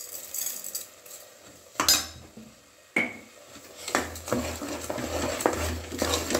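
Salt is sprinkled into an aluminium pressure cooker. A metal ladle then clanks sharply against the pot twice and keeps scraping and clicking against it as it stirs a thick masala paste.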